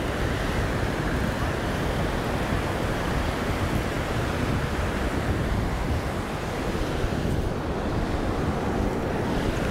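Ocean surf breaking and washing up the beach, a steady rush of waves, with wind buffeting the microphone as a low rumble.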